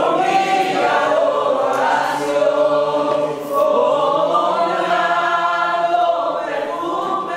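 A congregation singing a worship song together, many voices on long held notes.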